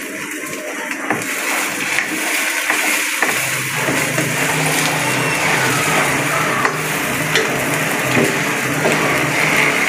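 Beaten egg sizzling as it fries in oil in a non-stick wok, with a spatula and fork scraping and tapping against the pan as the omelette is broken into small pieces. A low steady hum joins about three seconds in.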